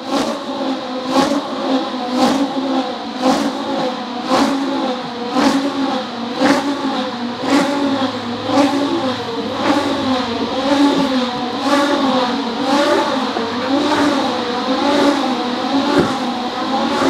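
Electric RC car circling round the inside of an inflated clear plastic zorb ball. Its motor whine rises and falls in a steady cycle, with a sharp tap about once a second as it goes round.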